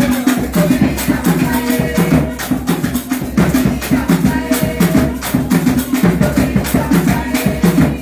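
Live traditional hand drumming by a small percussion group, playing a fast, steady, driving beat with pitched drum strokes and bright rattling percussion.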